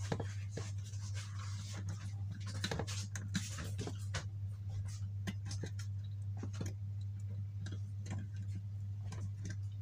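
Small irregular clicks and scratches of fingers handling wire leads and a relay module, over a steady low hum.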